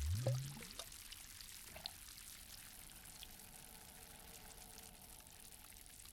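Lake water lapping and sloshing, louder for the first second and then settling into a faint, gentle trickle.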